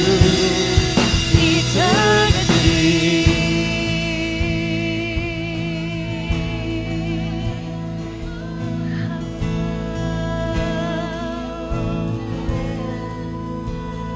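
Live worship band playing a slow song: a voice holds out the end of a sung line over sustained chords and drums. The music then eases into a softer passage between verses.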